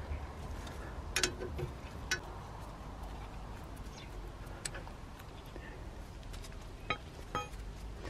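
A handful of short, sharp metallic clinks, spread unevenly, as the top brake caliper bolt and the caliper are handled by hand, over a low steady background rumble.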